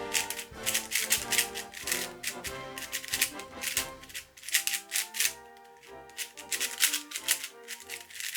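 A YJ ZhiLong 4x4 speed cube with core magnets being turned fast in a solve, a rapid, irregular clatter of plastic layers clicking into place, over background music.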